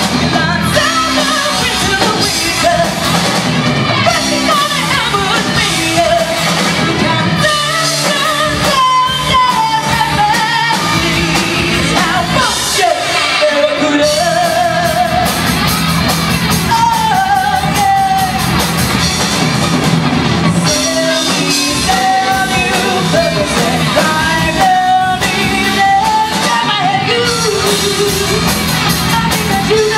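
A woman singing lead with a live rock band: electric guitar, bass and drums. Her held notes waver with vibrato.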